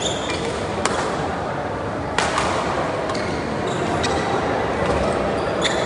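Badminton rally: sharp racket strikes on the shuttlecock, about a second in and a louder one a little after two seconds, with short high squeaks of court shoes on the mat, over a steady murmur of the sports hall.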